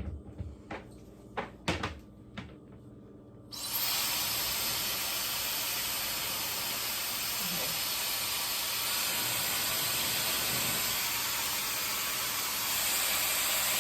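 A few handling clicks and knocks, then a Techmeri high-speed hair dryer switches on about three and a half seconds in and blows with a steady rush of air. It gets slightly louder near the end.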